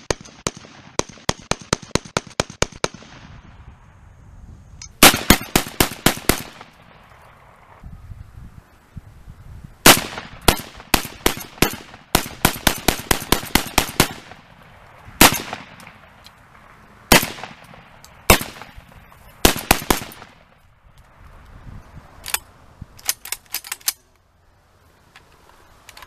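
Rock Island Armory VR80 12-gauge gas-piston semi-automatic shotgun firing strings of rapid shots, several per second, with pauses between strings and some single shots. The first string is fainter than the rest.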